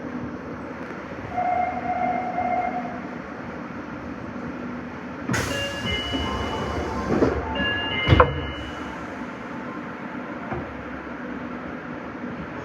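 Nagoya subway 5050-series train running through the tunnel with a steady rumble. About five seconds in comes a louder stretch of noise with several high ringing tones, then a sharp crack about eight seconds in.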